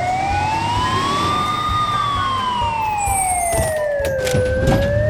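Ambulance siren wailing in a slow rise and fall: up for about a second and a half, down for nearly three, then rising again near the end, over a low steady rumble.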